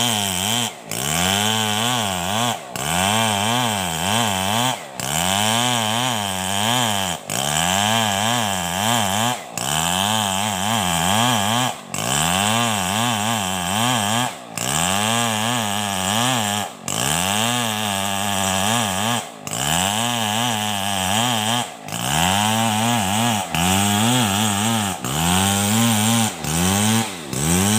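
Large two-stroke chainsaw, a Stihl 070, running at high revs while ripping a squared timber beam lengthwise along the grain. Its pitch keeps rising and sagging as the chain bites and bogs under load, with short breaks about every two seconds.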